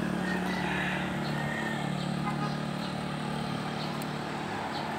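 Street traffic ambience: a steady engine hum from passing vehicles over road noise, easing off slightly towards the end.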